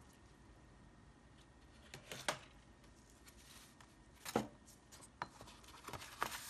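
Paper and a notebook being handled on a tabletop: a few short rustles and soft knocks as a tissue is moved aside and a notebook is set down and opened. The loudest knock comes past the middle, and a quick cluster of rustles follows near the end.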